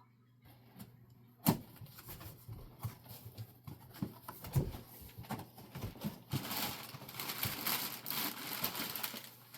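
Packaging being handled while parts of a model airplane kit are unboxed: a sharp knock about a second and a half in, scattered knocks and clicks, then a few seconds of plastic wrap rustling near the end.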